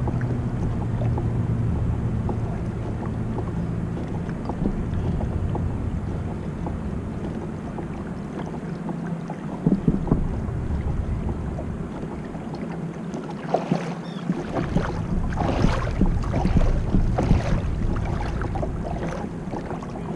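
Water rushing and splashing against the hull of a Hobie Pro Angler 12 pedal kayak under way, with wind on the microphone. A low steady hum fades out around the middle, and from about two-thirds in the splashes and knocks come sharper and more often.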